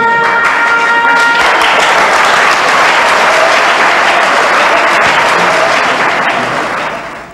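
Crowd applauding, a dense steady clapping that fades out near the end. For about the first second and a half it runs over the tail of a held, steady pitched note.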